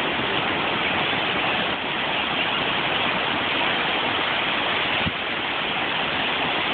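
Steady rushing noise of ocean waves breaking and washing up the shallows.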